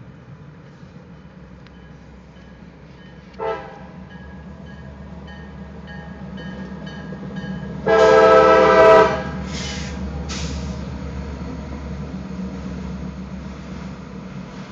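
CSX diesel freight locomotive's air horn: a short blast about three and a half seconds in, then a long, loud blast about eight seconds in as the locomotive crosses, with the rumble of the train rolling through the crossing after it. A railroad crossing bell dings steadily underneath.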